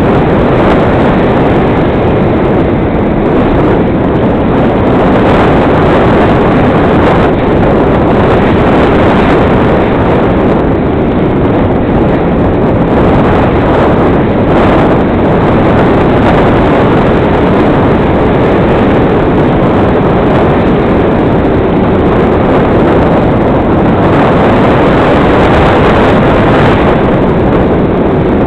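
RC model airplane's motor and propeller running steadily, heard from a camera on board, with loud wind rush over the microphone. A faint motor tone drifts slightly in pitch under the noise.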